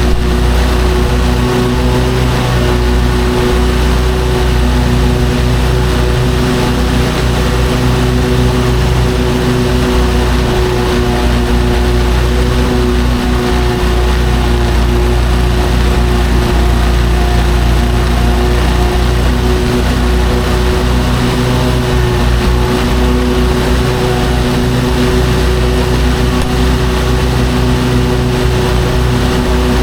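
Lawn mower engine running steadily at constant speed.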